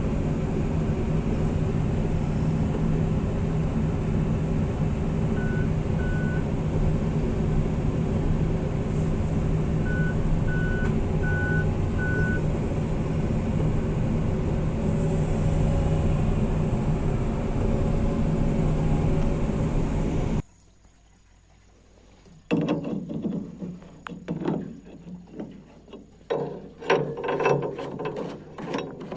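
Heavy excavator diesel engine running steadily, with short beeps of a machine warning alarm in two groups. After about twenty seconds the sound cuts off abruptly, and after a brief near silence come irregular mechanical clicks and rattles.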